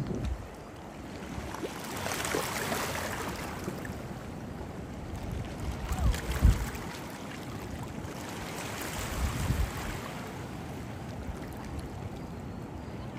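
Rushing white water of the Niagara River rapids, a steady churning hiss that swells now and then. Wind buffets the microphone with a few low thumps, the strongest about six seconds in.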